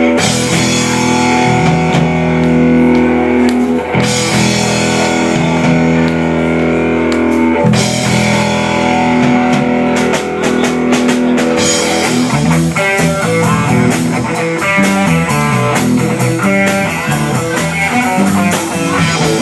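Rock music with electric guitar and drums: held guitar chords that change about every four seconds, then quicker, busier guitar notes from about twelve seconds in.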